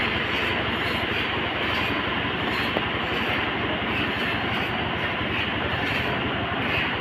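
Sawmill machinery running: a steady, dense mechanical din that holds even with no break.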